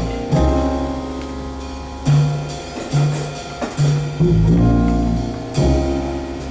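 Jazz big band playing held ensemble chords over a strong bass line, with a string of short accented hits in the middle.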